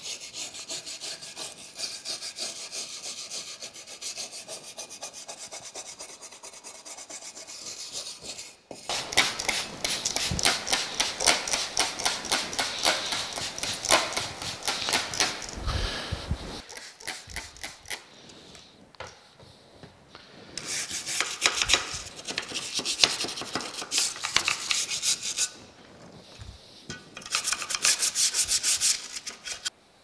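Stiff-bristled scrub brush working rapidly back and forth over the painted metal cover of a 1938 Remington Rand typewriter, scrubbing off grime and cracked, peeling paint. The scrubbing stops briefly a few times.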